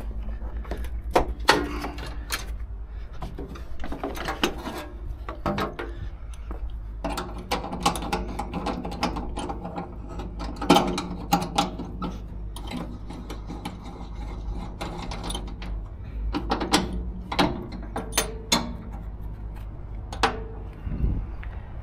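An engine running with a steady low hum, with repeated mechanical clicks and clattering over it.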